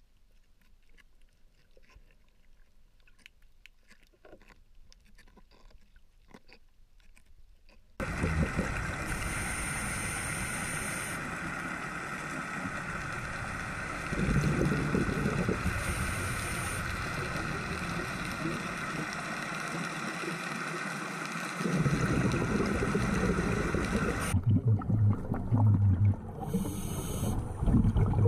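Underwater ambience picked up by a diving camera: faint scattered crackling at first, then about eight seconds in a sudden jump to a louder steady hum and hiss with a few faint whining tones. The sound shifts again at picture cuts about halfway through and near the end.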